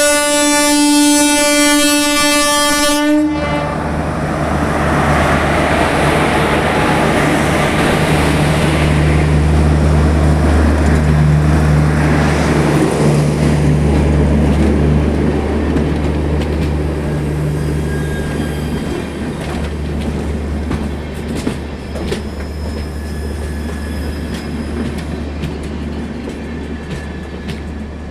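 Indian Railways WAP-4 electric locomotive's twin-tone horn blaring and cutting off sharply about three seconds in. The train then runs past with a loud rumble and steady low hum, wheels clicking over rail joints in the later part as the sound slowly fades.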